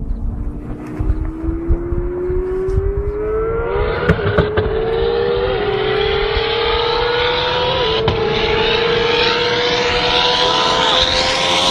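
A high-performance engine accelerating hard at speed, its pitch climbing steadily with brief dips at gear changes and growing louder, over heavy wind buffeting on the microphone.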